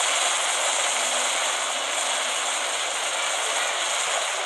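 A steady, even hiss, all high with nothing low, like static or rushing air, at a constant level.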